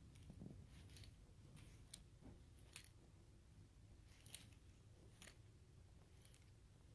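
Near silence: faint room tone with five or six short, sharp clicks about a second apart.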